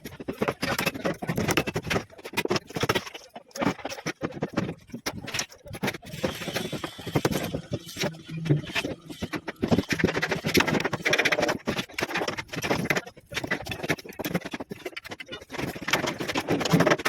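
Irregular knocking and clattering of slab shuttering (formwork) being set up, a dense, uneven run of knocks.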